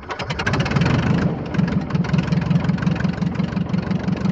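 Engine starting sound effect: a cranking that speeds up over the first second, catches, then settles into a steady idle with a fast throb.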